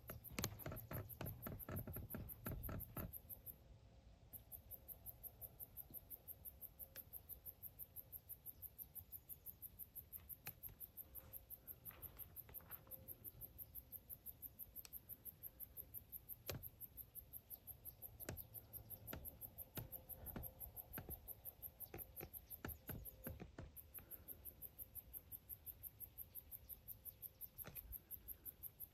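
Crickets chirping faintly in a steady, very high-pitched pulse of about three chirps a second, with two brief breaks, one about four seconds in and one past the three-quarter mark. Faint clicks and knocks are scattered through it, densest in the first few seconds.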